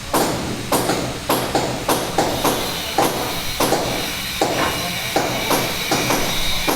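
Rapid, uneven series of sharp knocks or strikes, about three a second, each with a short ringing tail.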